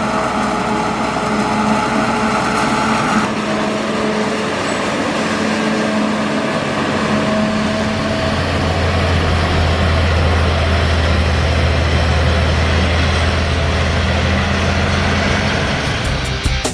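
Dubbed sound effect of heavy farm machinery: a large diesel engine running steadily under load with a hum on top. The hum drops away about three seconds in, and a deeper drone comes up from about eight seconds.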